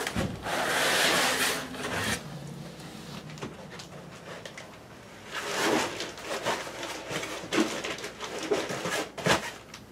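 Foam packing blocks and plastic wrap rubbing against a cardboard box as a vinyl cutter is lifted out, loudest for the first two seconds. Then quieter scattered handling rustles and knocks, with a sharp click near the end.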